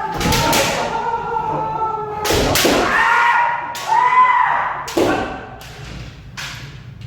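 Kendo practice: sharp cracks of bamboo shinai strikes and thuds of stamping footwork on a wooden floor, several times, with long drawn-out kiai shouts held over them.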